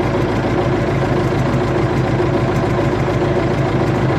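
Tractor engine running steadily at a low, even hum, heard from inside the cab.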